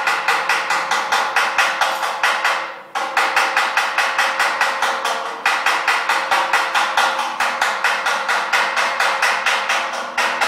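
Rapid, even hammer blows on steel, about six a second, in runs broken by short pauses about three, five and a half and ten seconds in. This is typical of hot rivets being closed on a vintage Bentley chassis.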